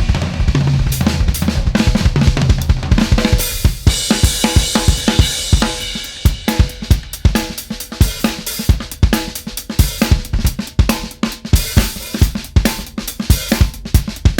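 Background music led by a drum kit: a steady beat of kick, snare and cymbal hits, the low end heavier for the first few seconds, then sparser, sharper hits.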